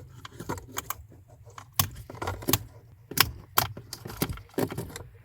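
Irregular sharp clicks and rattles of plastic wiring connectors being handled and fitted at a Jeep's accelerator pedal plug.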